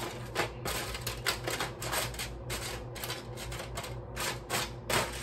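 Round wafer cookies being tossed and pushed around by hand in a disposable aluminium foil pan: a quick, irregular run of light clicks and crinkles of the thin foil, over a low steady hum.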